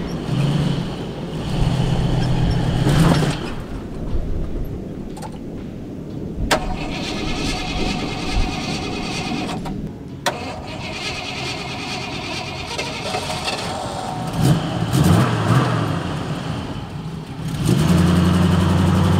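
1974 Jeep Cherokee's carbureted engine dies about three seconds in, then is cranked on the starter in several tries until it catches and runs steadily near the end. It is stalling from a fuel mixture running rich as the trail climbs in elevation.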